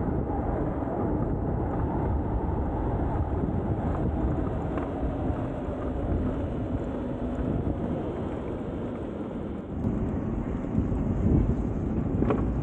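Motorcycle running along the road, a steady engine and road rumble with wind buffeting the microphone.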